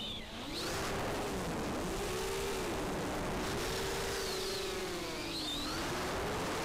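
FPV racing quadcopter's electric motors and propellers whining over a rush of wind noise. The pitch dips briefly just after the start, then swoops up and down continuously as the throttle changes.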